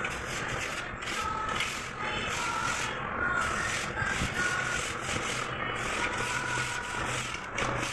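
Aluminium straight-edge bar dragged back and forth across a damp sand-and-cement mortar bed, a repeated gritty scraping in quick strokes. It is screeding the floor level before tiles are laid.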